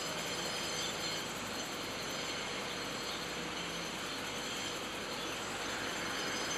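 Steady background drone and hiss, like running machinery, with no distinct knocks or strokes standing out.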